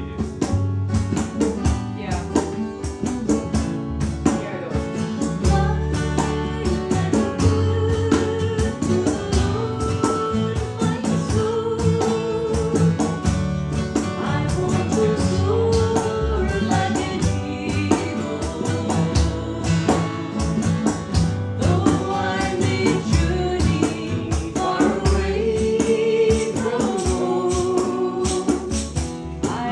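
A small acoustic band playing and singing a song, voices over strummed acoustic guitar and mandolin, with a steady beat.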